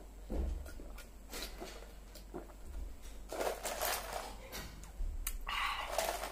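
A person drinking from a plastic cup: soft gulps and swallows, then breathy exhales and lip smacks after the cup is lowered.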